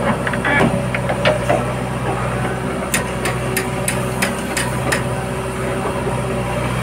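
JCB 3DX backhoe loader's diesel engine running steadily while it loads soil into a tractor trolley, with a run of sharp knocks about three to five seconds in as the bucket is worked and tipped.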